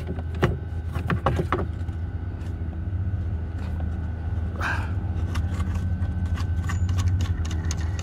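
Scattered clicks, knocks and a brief rustle from hands handling a plastic-sheathed cable loom and unscrewing a 3D-printed screw-in mount, over a steady low hum.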